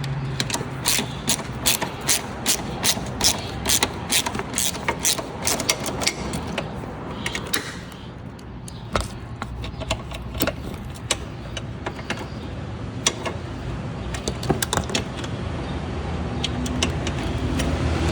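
Hand socket ratchet clicking as it turns a bolt loose, with a steady run of clicks about three a second for the first several seconds, then slower, scattered clicks.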